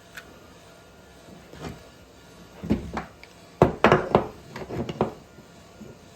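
A series of irregular knocks and clatters of hard objects being handled and set down on a work surface, loudest in a quick cluster of several knocks about two thirds of the way through.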